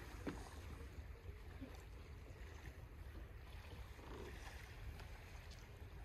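Faint sea surf, with a steady low wind rumble on the microphone and one brief tap just after the start.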